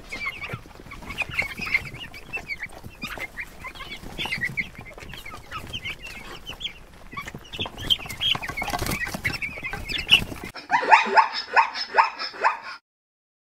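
A flock of farmyard fowl clucking and chirping over a busy background. About ten seconds in it cuts to a run of quick, repeated higher calls from another animal, which stop shortly before the end.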